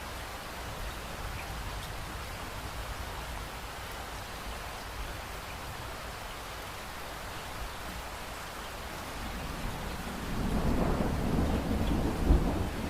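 Steady rain falling, with a roll of thunder building up about ten seconds in and rumbling loudest near the end.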